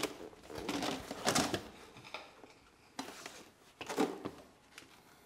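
A few separate scraping and knocking sounds of hands-on work in a garage, each lasting up to about a second, with pauses between them.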